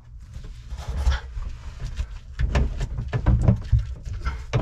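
White corrugated plastic hose, its end softened in hot soapy water, being twisted and pushed onto a through-hull fitting: irregular knocks and rubbing, busier in the second half, over a low rumble.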